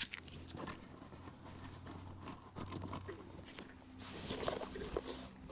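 Faint rustling and light clicks of a tackle box's packaging being handled, louder for a moment about four seconds in.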